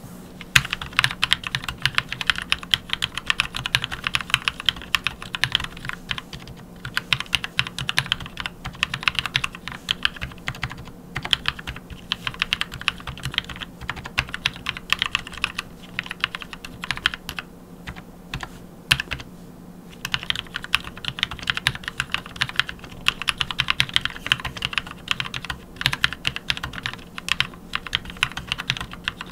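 Typing on an Anne Pro 2 60% mechanical keyboard fitted with NovelKey Cream switches lubed with Krytox 205g0, set on a deskmat: a fast, continuous run of key clacks with a few short pauses.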